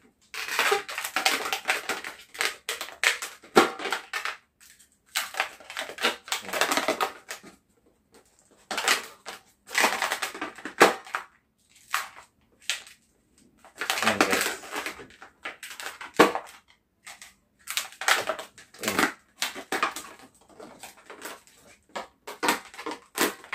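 Latex modelling balloons rubbing and squeaking against each other and against hands as they are twisted and bent into shape, in repeated crackly bursts of a second or more with short pauses between.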